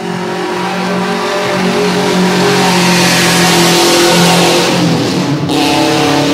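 Race car engine running hard on a wet circuit, getting louder as the car comes closer, with a hiss over the engine note. About five and a half seconds in, the engine note changes sharply.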